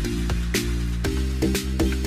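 Background music with a steady electronic dance beat and a deep bass line.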